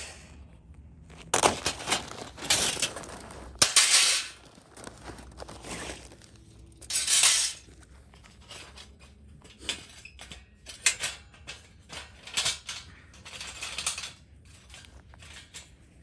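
Irregular handling noises: bursts of rustling and crunching, with short sharp clinks and knocks in between.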